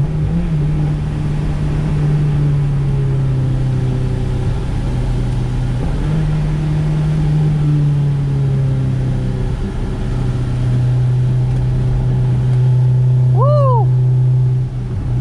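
Honda S2000's four-cylinder engine, heard from inside the cabin, running at a steady pitch with brief dips about 6 and 10 seconds in. A short rising-and-falling squeal near the end.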